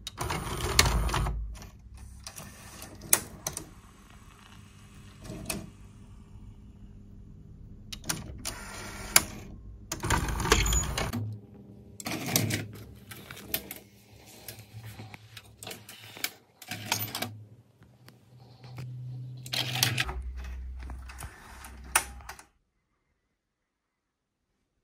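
Pioneer D-05 DAT deck's cassette loading mechanism running with its cover off: a small motor drives rubber belts and white plastic gears, in spells of whirring with sharp clicks and clunks. The sound stops abruptly near the end.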